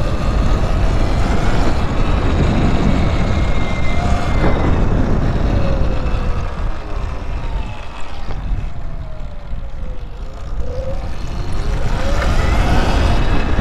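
Electric motorbike motor whining, its pitch rising and falling as the rider speeds up and slows down, over heavy wind rumble on the microphone.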